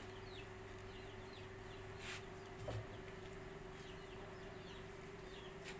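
Faint, scattered short chirps from birds, each dropping in pitch, over a steady hum.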